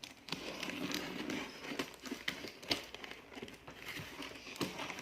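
Packing material crinkling and rustling by hand, with scattered light knocks and taps, as a parcel is unwrapped.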